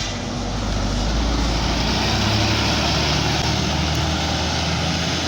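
Agam Tunggal Jaya tour bus's diesel engine running as the bus drives through a tight bend, a steady low drone with broad road noise.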